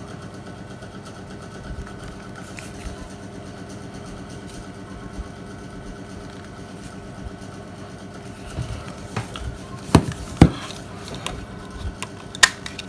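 Steady low background drone with handling noise from mobile phones on a table: two sharp knocks about ten seconds in as a phone is set down, then lighter clicks and taps near the end.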